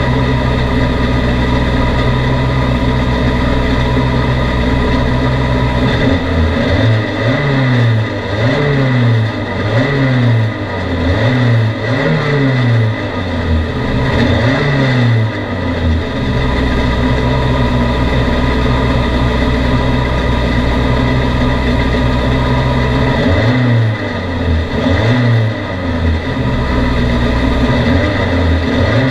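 Touring autocross race car's engine heard from inside the cockpit, loud throughout. It runs at steady revs for about six seconds, then the revs rise and fall over and over, about once a second, as it accelerates on the dirt track. It settles to a steady drone again, and the sweeps return near the end.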